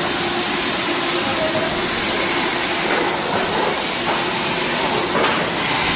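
Rotary carbonated drink filling machine running, with a steady loud hiss and faint steady machine tones underneath. A brief, brighter surge of hiss comes about five seconds in.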